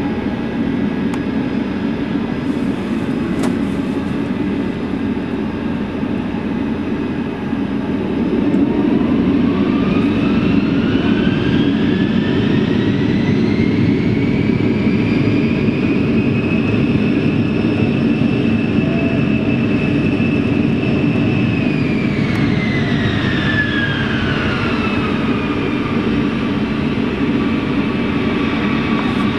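Boeing 747 jet engines running with a loud, steady roar. About a quarter of the way in the roar gets louder and a whine climbs in pitch as the engines spool up to high thrust. The whine holds, then falls away again near the end as they throttle back.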